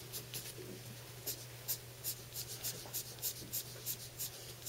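Graphite pencil scratching on paper in short, quick strokes, about three a second, as fine flicking marks are shaded in for fur.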